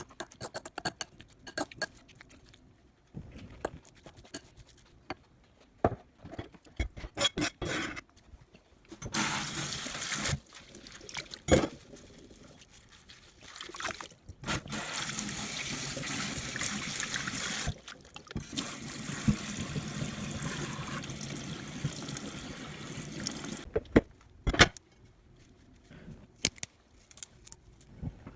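Running water in three stretches of a few seconds each, the longest about six seconds, with scattered clicks and a couple of sharp knocks from kitchenware being handled in between.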